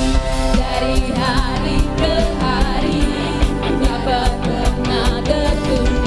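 Worship band music: drums and bass with a wavering lead melody over them.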